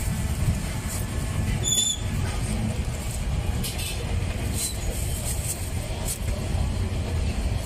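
Street ambience: a steady low rumble of passing traffic, with scattered light clicks and clinks and a brief high chirp about two seconds in.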